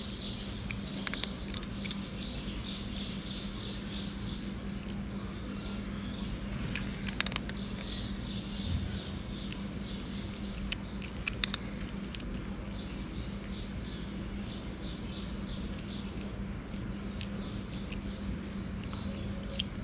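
A cat chewing dry kibble close by, with scattered sharp crunches over a steady low hum.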